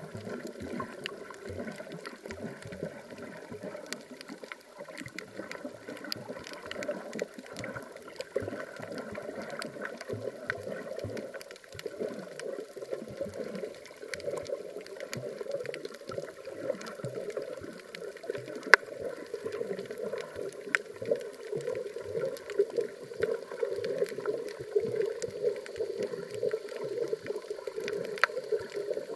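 Muffled underwater water noise heard through a camera's waterproof housing: a steady, churning rush with scattered faint clicks and ticks, and one sharper click about two-thirds of the way through.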